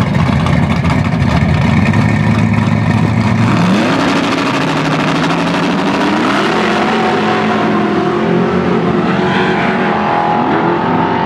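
Two drag cars, a Chevy II Nova and a Ford Mustang, rumble loudly on the line and then launch and accelerate away down the strip. The engine pitch climbs and drops back about four times as they shift through the gears.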